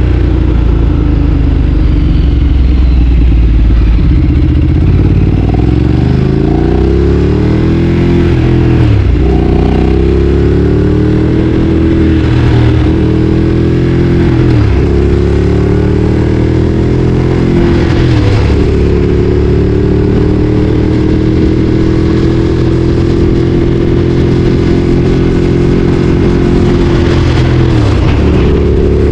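Ducati Streetfighter 848 L-twin engine under way. The engine note climbs and drops sharply four times as it is shifted up through the gears, then holds fairly steady at cruising revs, with one more brief dip near the end.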